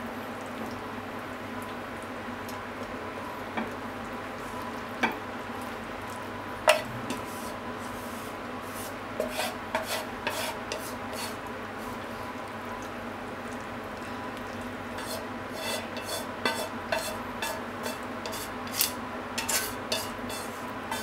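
Chopsticks scraping and tapping against a metal frying pan as stir-fried pork and onions are pushed out into a bowl, with scattered clicks that come more often in the last several seconds, the sharpest knock about seven seconds in. A steady hum runs underneath.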